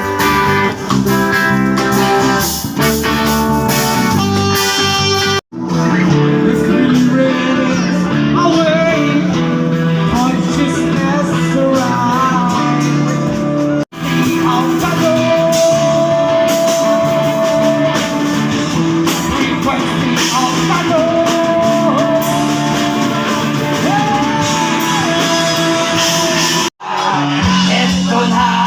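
Music with guitar and a singing voice, broken by three sudden cuts where it drops out for an instant and resumes with a different passage.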